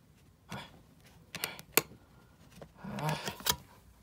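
A DVD being handled in its plastic case: a few short, sharp plastic clicks and knocks as the disc is worked off the case's centre hub, the sharpest a little under two seconds in.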